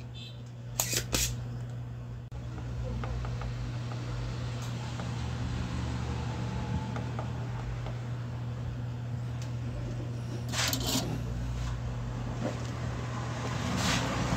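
Spring-loaded desoldering pump snapping as it is triggered while the pins of a CRT TV's vertical IC are desoldered: two sharp snaps about a second in, another around eleven seconds and one near the end. A steady low hum runs underneath.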